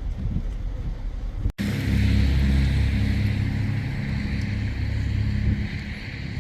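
A car on the move: a steady low engine and road rumble with a hiss of tyre and wind noise over it. About a second and a half in it cuts off abruptly, then comes back louder.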